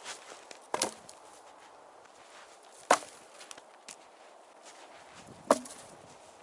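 Cut logs thrown onto a pile of other logs: three sharp wooden knocks, a couple of seconds apart.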